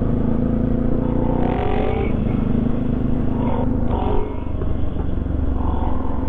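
Motorcycle engine running steadily at cruising speed, heard from the rider's seat.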